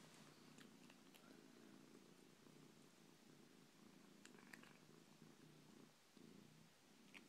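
Domestic cat purring faintly in a steady low rumble, with a few faint crunching clicks as it chews a wheat cracker.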